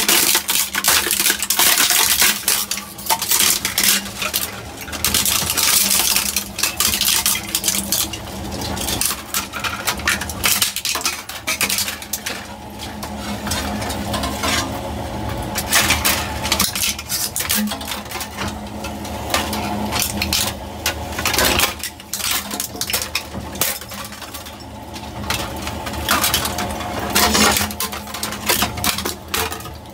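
Twin-shaft industrial shredder chewing through a black-framed white panel and its fragments: rapid cracking and clattering of breaking pieces over a steady motor hum.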